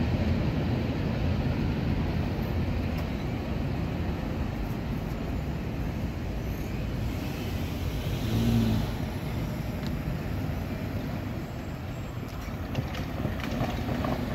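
Low, steady rumble of a CSX manifest freight train fading as it moves away from the crossing, with road traffic starting to pass. A brief louder engine-like hum comes about eight seconds in.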